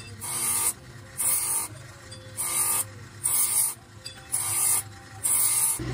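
Grinding wheel grinding a metal motorcycle brake shoe, the shoe pressed to the spinning wheel in six short hissing passes about a second apart, with the wheel's low hum between them.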